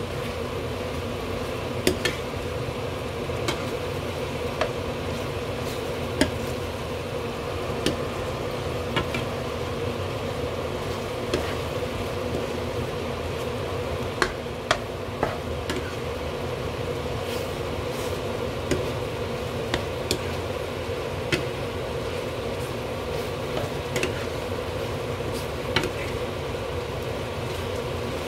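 Tteokbokki simmering and sizzling in a frying pan as it is stirred with a spatula, which taps against the pan now and then, over the steady hum of a kitchen extractor fan.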